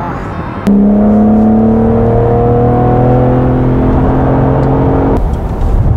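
BMW M4's twin-turbo straight-six engine pulling hard under acceleration, heard from inside the cabin: it comes in suddenly about a second in, its pitch climbing steadily for about four and a half seconds, then breaks off near the end.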